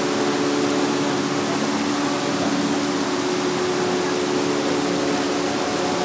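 Clear stream water flowing and gurgling steadily, an even, unbroken rush.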